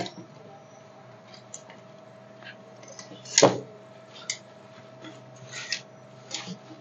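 A long metal tool knocking and scraping against a whole goat and its spit as it roasts, with one sharp knock about three and a half seconds in and lighter clicks and scrapes around it. A faint steady hum runs underneath.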